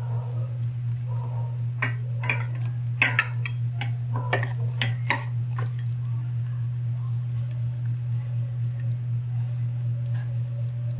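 Metal spoon clinking against the side of a metal cooking pot of beef soup while stirring: a quick run of about a dozen sharp clinks about two seconds in, then a couple more near the end. A steady low hum sits underneath.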